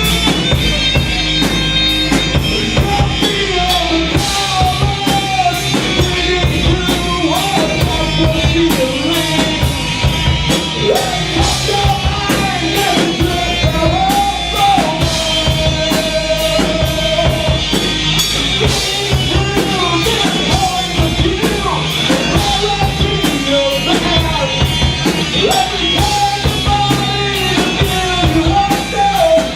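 Live rock band playing loud stoner rock: drum kit hits, bass and guitars, with a melodic lead line that bends up and down and holds one note for a couple of seconds about halfway through.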